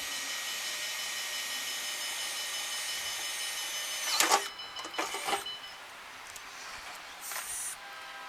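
Electric drill running steadily, drilling through a car fender's sheet metal, then stopping about four seconds in; a few knocks follow.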